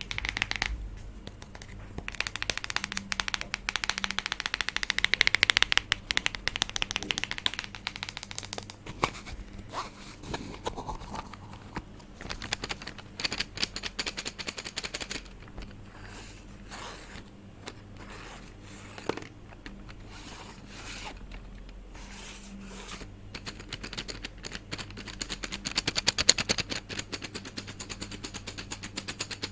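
ASMR tapping and scratching triggers: rapid, crisp taps and scrapes on an object, in busier flurries now and then, over a steady low background hum.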